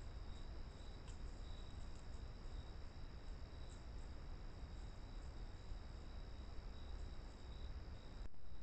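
Crickets trilling steadily in a high, continuous chorus over a low, steady rumble.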